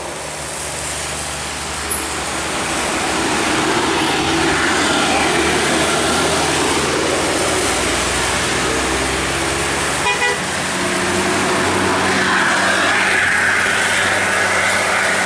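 Buses and traffic passing on a rain-wet road, tyres hissing and engines running, with a horn tooting.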